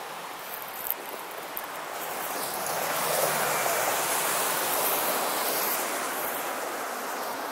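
Steady rushing outdoor noise with no barking or voices, growing louder about three seconds in, with one brief click about a second in.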